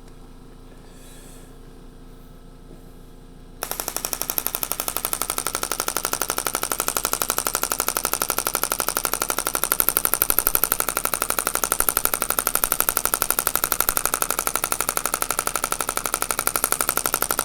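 Radial shockwave therapy handpiece firing a fast, even train of sharp clicking pulses into the patient's body, starting abruptly a few seconds in after quiet room tone. The machine has just been turned up to a higher intensity for the final part of the treatment.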